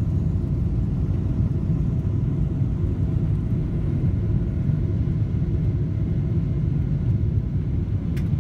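Steady low rumble of a running vehicle, with no breaks and a faint steady hum above it.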